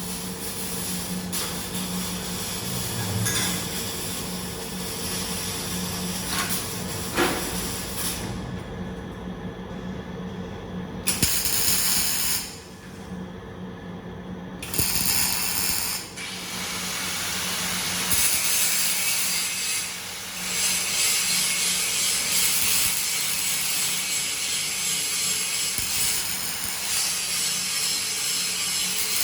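Semi-automatic arc welding: the arc crackles and hisses steadily. It stops twice for a few seconds near the middle, then runs on again.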